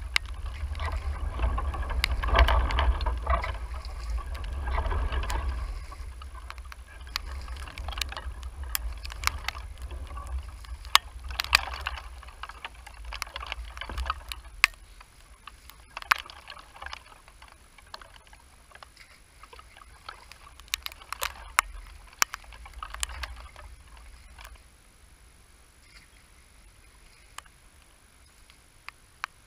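Long-handled rake dredging mud and weeds out of a shallow stream: repeated splashing, sloshing and scraping with scattered sharp knocks, dying down near the end. A heavy low rumble on the microphone runs under the first several seconds.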